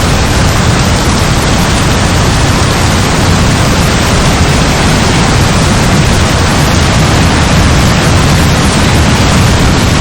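Heavy rain falling steadily, a dense even hiss with a deep low rumble underneath.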